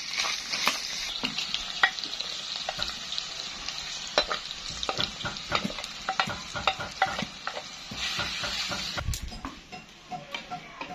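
Chicken pieces sizzling in hot oil in a clay frying pan, with a wooden spatula scraping and knocking against the pan as they are stirred. The sizzle is strongest at the start and again about eight seconds in, easing off near the end.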